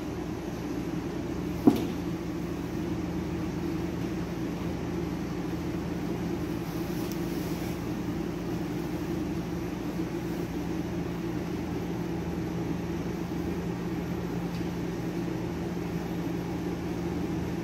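Steady low mechanical hum with a faint even hiss, and a single sharp click about two seconds in.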